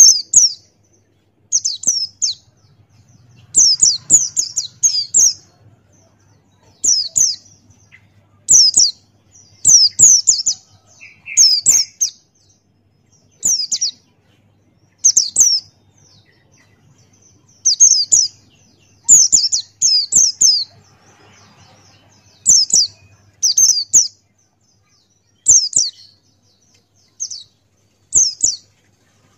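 Pleci buxtoni white-eye singing: short bursts of quick, very high chirping notes that sweep downward, repeated every second or two with brief pauses between.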